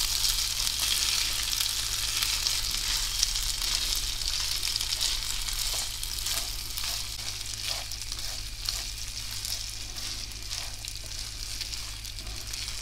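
Rice, almonds, pine nuts and onion sizzling in oil and melting butter in a nonstick pan as the rice is toasted before the broth goes in, stirred with a silicone spatula that scrapes the pan now and then. The sizzle is strongest at first and eases a little as the stirring goes on.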